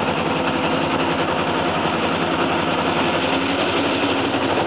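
Freight train of boxcars rolling past, steel wheels running on the rails in a steady, unbroken noise.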